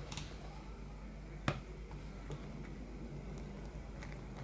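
A screwdriver working a steel wrist-pin C-clip into its groove in a scooter piston: one sharp click about a second and a half in, with a few faint small ticks.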